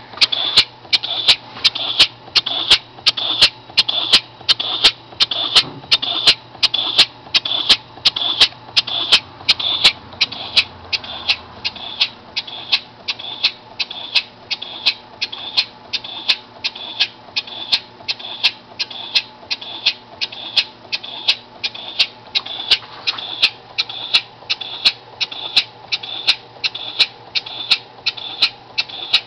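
Small homemade oscillating-cylinder air motor running on compressed air, giving a sharp hissing exhaust puff about twice a second at a steady, even pace.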